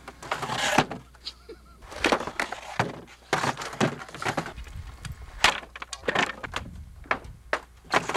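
Skateboard clattering on a plywood sheet and loose wooden planks: a string of irregular sharp knocks and clacks, with short scraping rolls between them.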